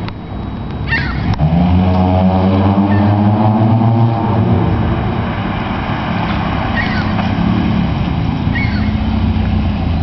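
1991 Chevrolet Corsica LT's 2.2-litre four-cylinder engine running as the car drives toward and past, its note coming in loud about a second and a half in and then holding fairly steady.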